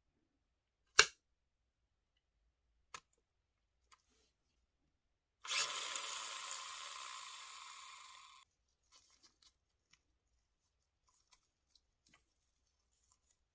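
A sharp click, a few lighter taps, then a hissing rush lasting about three seconds that fades toward its end and stops abruptly, followed by faint scattered ticks.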